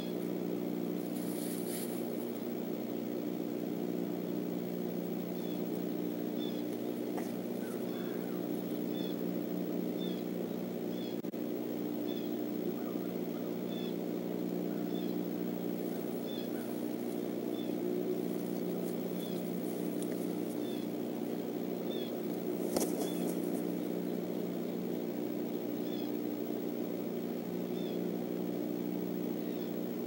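Steady low hum made of several tones, with a faint high chirp repeating about once a second and a single sharp knock about three-quarters of the way through.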